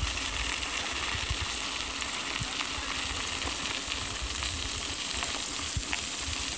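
Bicycle tyres rolling over a gravel trail: a steady crackling hiss with small ticks from the stones. Wind rumbles on the microphone of the moving bike beneath it.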